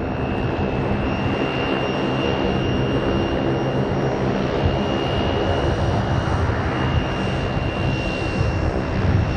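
Grumman Gulfstream I twin turboprop with Rolls-Royce Dart engines rolling along the runway: a steady high turbine whine over a low propeller hum.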